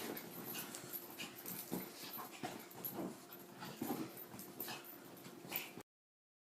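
Pug making 'gremlin noises': a run of short, irregular whines and grunting breaths. The sound cuts off suddenly near the end.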